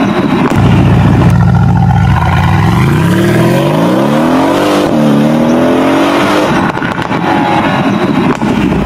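Mercedes-AMG C63 S's twin-turbo V8 through a valved cat-back exhaust, holding a low steady note, then accelerating hard with the pitch climbing, dipping at an upshift about five seconds in and climbing again, before breaking up into a rougher rumble as the car pulls away.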